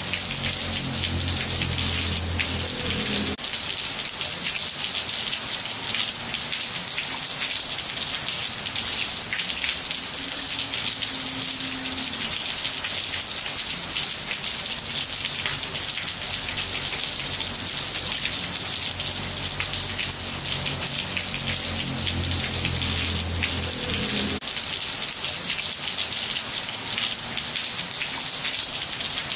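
Steady rain falling on roof tiles: a dense, even hiss with individual drops standing out. A low rumble sits beneath it, cutting off abruptly about three seconds in and coming back briefly near the end.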